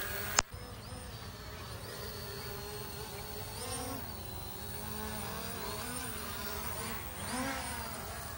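Small camera quadcopter's brushless motors and propellers buzzing in flight, the pitch swelling up and settling back twice. A single sharp click sounds about half a second in.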